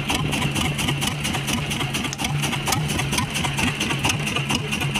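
Small fishing boat's engine running steadily at idle, with a fast, even knocking beat.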